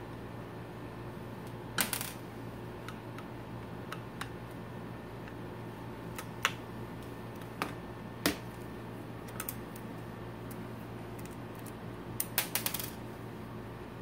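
Sharp metallic clicks and taps, scattered and irregular with a quick cluster near the end, from a screwdriver and a hard drive knocking against a desktop PC's sheet-metal drive cage while mounting screws are taken out. A steady low hum runs underneath.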